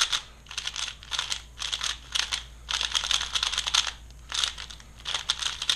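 Stickerless Valk 3 3x3 speedcube being turned fast, a rapid dry clacking of plastic layers in several bursts with short pauses between them. The cube's tensions are loosened.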